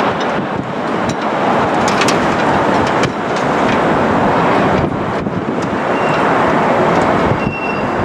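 Loud, steady jet-engine roar from an airliner on landing approach, with wind buffeting the microphone; the level dips sharply a few times.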